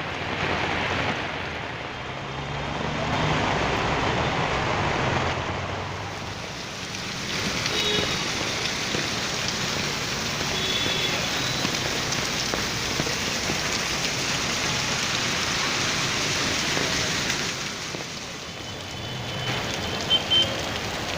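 Rain falling steadily, swelling and easing every few seconds, with two sharp clicks in quick succession near the end.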